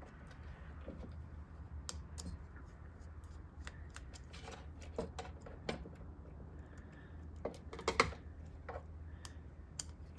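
Small clicks and scrapes of a screwdriver and wire being worked into a mains switch's screw terminal, scattered and irregular, the sharpest click about eight seconds in, over a steady low hum.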